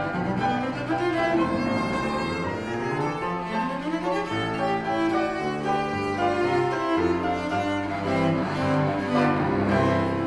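Cello and grand piano playing a fast classical-style allegro together, the cello carrying the line over the piano, with quick rising runs a couple of seconds in.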